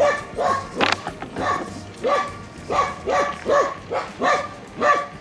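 A puppy barking over and over, about one and a half barks a second, with a sharp click about a second in.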